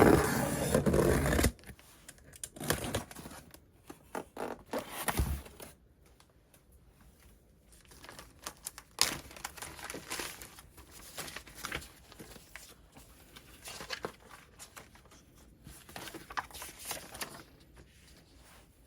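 Packaging being handled and opened: rustling, crinkling and tearing, with light scrapes and clicks. It is loudest in the first second and a half, then goes on as scattered softer rustles.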